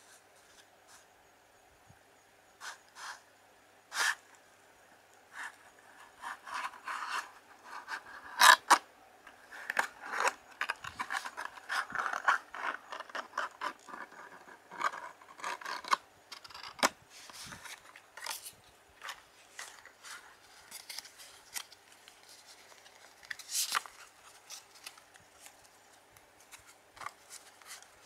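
Playing cards and their cardboard tuck box being handled: cards sliding and scraping against the card box and each other, with irregular sharp taps and clicks. The loudest is a pair of sharp clicks about eight seconds in.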